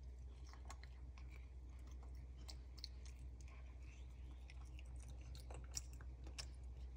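Spider monkey chewing a mouthful of pumpkin ball mix: faint, irregular wet clicks and smacks over a low, steady hum.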